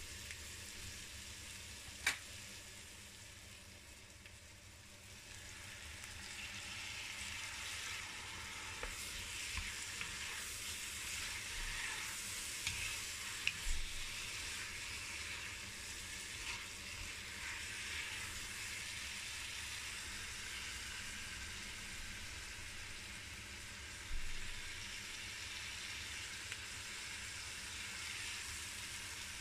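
Smoked pork pieces and onions sizzling in oil in an enamelled cast-iron pot while being stirred with a wooden spoon. The sizzle swells about five seconds in, and a few sharp knocks stand out over it.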